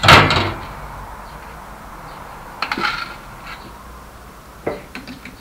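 A loud metallic clank, then lighter metal clinks and taps about two and a half seconds in and again near the end, from steel tools and parts being handled at a metal lathe's chuck.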